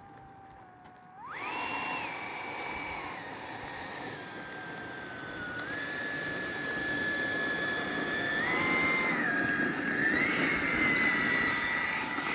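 Electric ducted fan of a 90mm RC F/A-18 jet whining at low throttle, then spooling up sharply about a second in to a loud high whine. The pitch then steps down and up several times with throttle changes, and it gets louder toward the end.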